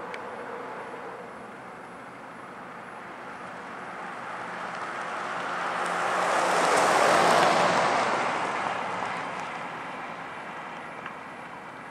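A motor vehicle passing by: its noise builds over a few seconds, peaks just past the middle, then fades away.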